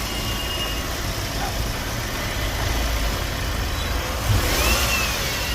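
Mercedes C200 CGI petrol engine running steadily at idle, now starting after its crank-no-start fault was repaired. A brief knock comes about four seconds in.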